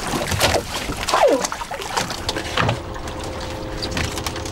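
Water splashing and short knocks in a small open fishing skiff as Humboldt squid are hauled aboard by hand line. A faint steady hum joins near the end.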